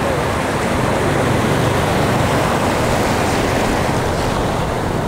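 Surf washing over the shallows: a steady rush of broken waves and foam running over sand.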